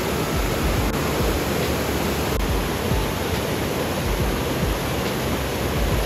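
Mountain river rapids rushing over boulders and a low concrete weir: a steady wash of white-water noise.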